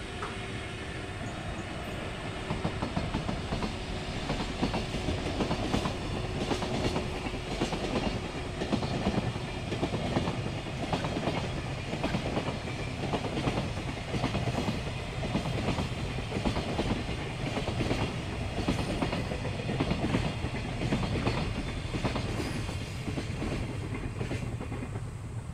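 Container freight train behind an EF81 electric locomotive rolling past, its wagons' wheels clacking over rail joints in a steady rhythm over a low rumble. The sound dies away near the end as the last wagons pass.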